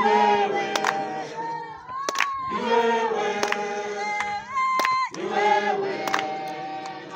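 A crowd of protesters singing a protest song in call and response: a single voice calls out, rising in pitch, twice, and the group answers in chorus each time, with sharp percussive beats through the singing.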